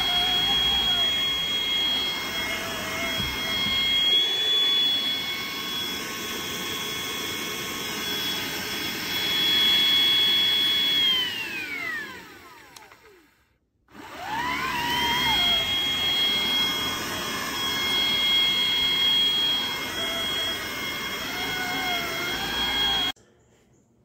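Hoover ONEPWR Evolve Pet Elite cordless upright vacuum running, a steady high whine over suction noise. About twelve seconds in, the motor winds down to a stop. A second later it spins back up and runs steadily, and the sound cuts off abruptly near the end.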